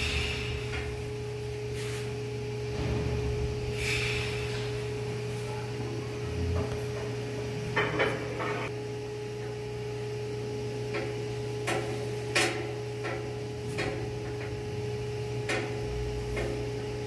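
Scattered sharp metallic clicks and knocks from work inside an ME-B marine engine's chain-drive casing during chain re-tightening, the loudest about 8 and 12 seconds in, over a steady low machinery hum with a faint higher tone.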